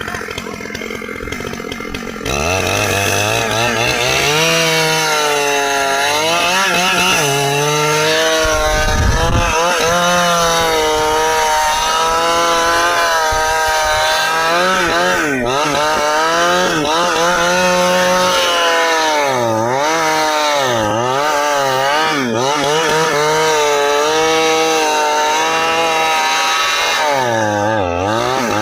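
Stihl two-stroke chainsaw cutting through dry ipê hardwood. About two seconds in it opens up to full throttle, and its engine pitch keeps rising and sagging as the chain loads up in the dense wood, dipping deepest in several pulls in the second half.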